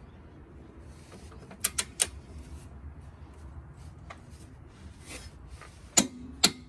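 Click-type torque wrench on a front chassis brace bolt of a Porsche Boxster 986: sharp metallic clicks, three in quick succession about two seconds in and two more near the end, as the bolt is pulled up to 100 N·m.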